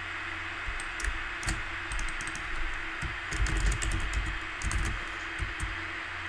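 Typing on a computer keyboard: irregular key clicks in quick runs, starting about a second in, over a steady background hiss.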